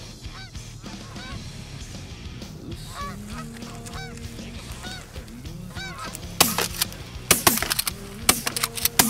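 A flock of Canada geese honking repeatedly as they fly overhead. In the last three seconds there are several loud, sharp cracks or knocks in quick clusters.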